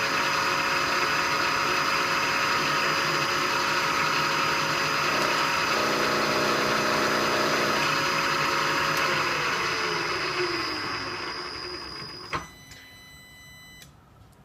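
Milling machine running steadily with a 3/4-inch four-flute carbide end mill, facing the ends of tool-holder blanks at 10 degrees. About nine seconds in the spindle is shut off and winds down, its hum falling in pitch, and a sharp click follows near the end.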